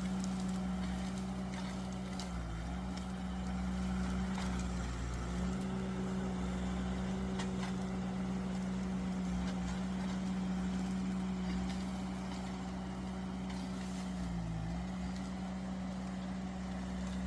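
Mini skid steer's engine running steadily, its pitch dipping briefly three times, with occasional clicks and knocks.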